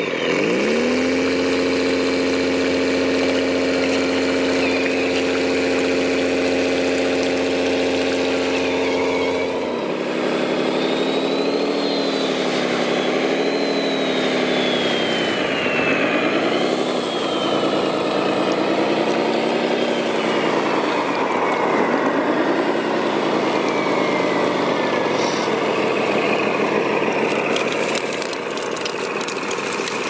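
Engine sound of radio-controlled construction models. For the first ten seconds a scale RC truck's engine drones steadily as it wades through muddy water. After that an RC Komatsu wheel loader's engine rises and falls as it scoops gravel, with several high whines sliding down in pitch and stones crackling near the end.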